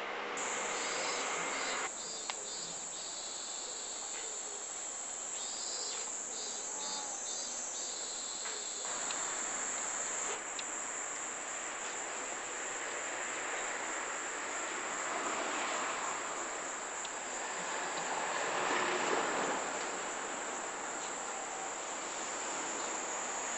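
A high, steady insect drone, with bursts of rapid pulsing calls in the first several seconds, over a steady hiss of flowing river water.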